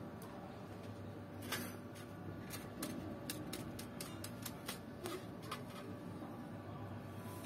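Light sharp clicks and crackles, about a dozen over a few seconds, over a low steady hum, as a burning rubber remote-control keypad is set down in a foil-lined wire basket.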